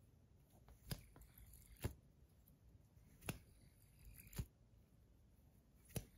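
Five short sharp clicks, about a second or more apart, as small metal fidget spinners are handled, with metal knocking lightly against hard surfaces.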